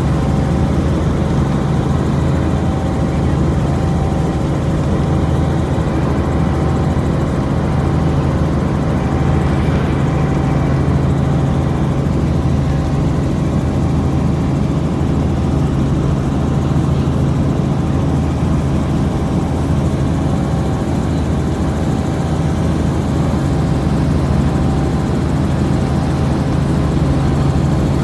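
Helicopter engine and rotor running steadily in flight, a constant low drone with no change in pitch or level.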